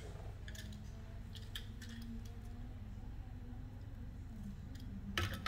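Faint, scattered small clicks and taps of hand work at an electronics bench over a steady low hum, with a louder sharp click near the end.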